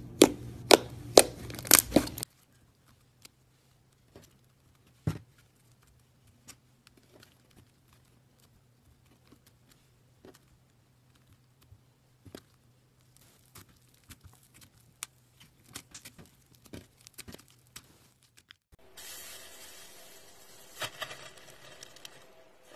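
Hands playing with slime: pink fluffy slime squeezed with a run of loud sharp pops for the first two seconds, then a long quiet stretch of scattered faint sticky clicks. Near the end fingers tear into a block of foamy teal slime with a rough crackling, tearing sound.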